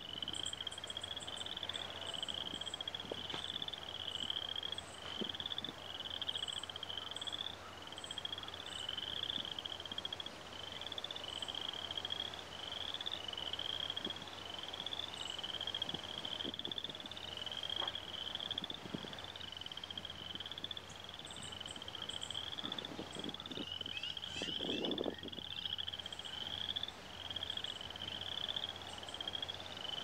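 A chorus of frogs calling: an unbroken run of short, trilled calls at a high pitch, each under a second long and repeating over and over. Faint high chirps sound above them now and then.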